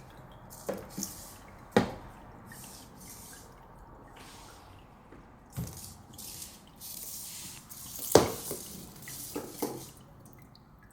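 Irregular taps, knocks and rustling from a kitten playing with a small object, with the sharpest knock about eight seconds in.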